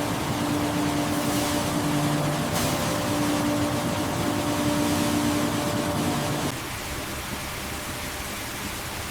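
Steady machine hiss with a low, steady hum, typical of factory machinery running. The hum cuts off about six and a half seconds in, leaving a quieter hiss.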